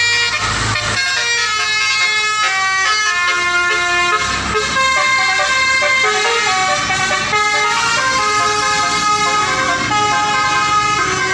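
Telolet bus horns playing tunes: several multi-note air horns sound overlapping melodies in quick stepped notes. There is low engine rumble underneath, strongest about half a second in and again around four seconds in.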